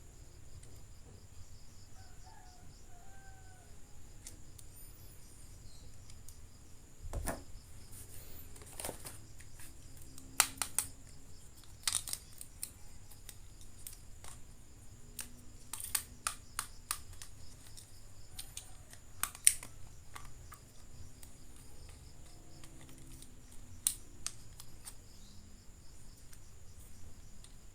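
Toys and plastic packaging being handled during an unboxing: scattered sharp clicks and snaps, with a duller knock about seven seconds in.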